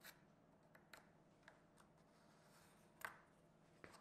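Near silence, with a few faint scratches and taps of a pencil tracing around a plywood template on a wood blank; the clearest comes about three seconds in.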